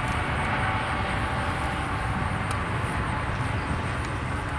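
Distant double-stack intermodal freight train, its container well cars rolling past: a steady rumble of steel wheels on rail.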